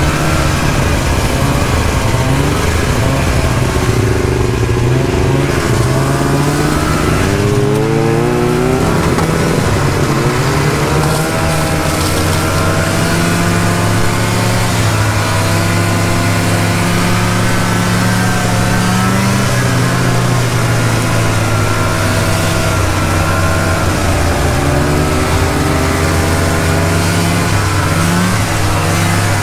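Snowmobile engine running at speed, its pitch rising and falling as the throttle changes.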